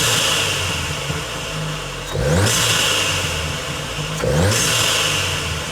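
Volkswagen Golf R Mk7's turbocharged 2.0-litre four-cylinder, fitted with an aftermarket RamAir induction kit, being blipped at a standstill, rising in revs about every two seconds. Each blip is followed by a loud hissing rush of air from the intake and turbo as the revs fall.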